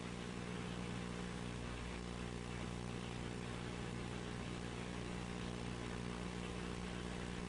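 Low, steady electrical hum with a background hiss, unchanging throughout, typical of the noise floor of an old videotape transfer.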